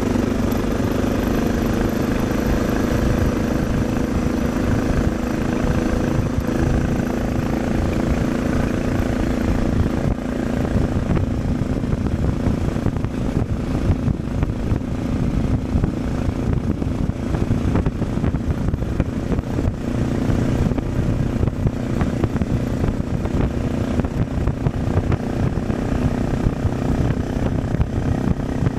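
Suzuki DR650's single-cylinder engine running through an aftermarket Dominator exhaust, steady in pitch at first. About ten seconds in, the engine tone recedes and gusting wind buffeting on the microphone takes over as the bike rides on.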